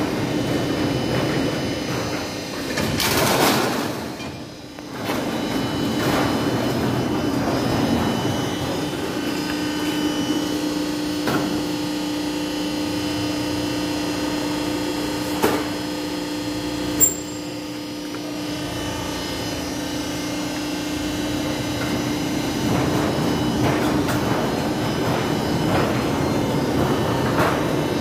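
Roll forming machine running steadily as it forms a blue rib-type roofing sheet, with a steady hum and two sharp clicks about a second and a half apart midway through.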